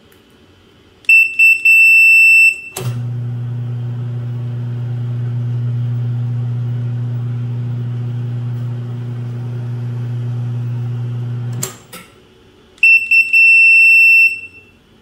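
A high electronic beeper sounds a few short beeps and then one held tone. A steady electrical hum follows for about nine seconds and stops with a click. The same beeps and held tone come again near the end.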